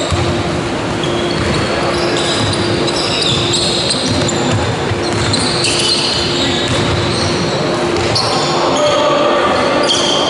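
Basketball game sounds in a large sports hall: a ball dribbled on the wooden court and many short high squeaks of trainers on the floor, all echoing.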